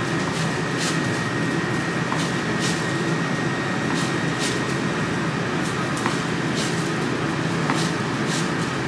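Steady mechanical hum with a thin high whine, such as an air-conditioning or refrigeration unit makes. Over it are faint, short swishes of a chef's knife slicing through raw New York strip steak on a cutting board, about one stroke every half second to second.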